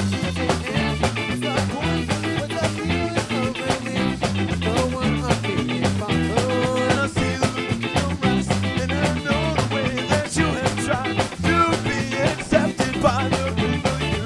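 Recording of a ska band playing a song: a full band with a steady drum beat and a moving bass line under the melody.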